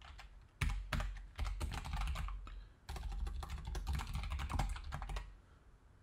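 Typing on a computer keyboard: two quick runs of keystrokes with a brief pause between them, stopping about a second before the end.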